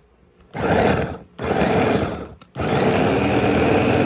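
Electric mini food chopper with a press-down top, chopping soft boiled vegetables in pulses. The motor is off at first, starts about half a second in, cuts out twice briefly, then runs steadily from about two and a half seconds in.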